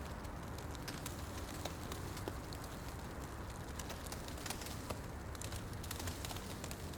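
Wood fire burning in a fireplace: a steady low rumble of flames with scattered sharp crackles and pops from the burning wood.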